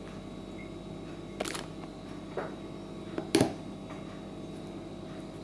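Handling noise from fingers gripping and working the edge of an iPhone 8 close to the microphone: three short clicks and scratches about a second apart, the last the loudest, over a low steady hum.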